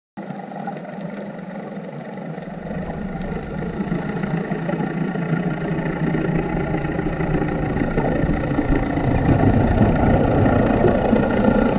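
Steady engine drone heard underwater, slowly growing louder.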